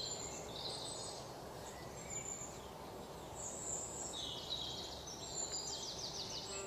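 Outdoor nature ambience: birds chirping over a steady background hiss, with quick runs of short high notes in the second half.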